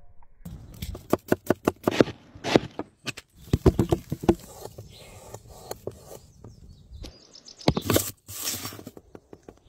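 Whole onions and cherry tomatoes dropping onto a wooden board, making a quick run of sharp knocks and thuds. Near the end come louder knocks as a cleaver comes down on a garlic bulb on the board.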